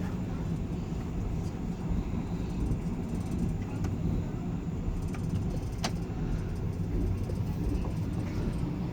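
Steady low rumble of a moving passenger train heard from inside the carriage, with one sharp click about six seconds in.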